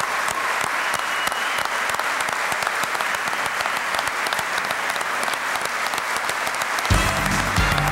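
A large audience applauding steadily. About seven seconds in, music starts up over the clapping.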